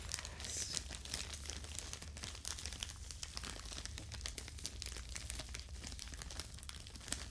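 Thin plastic packaging pouch crinkling as hands handle and turn it, a steady stream of small crackles.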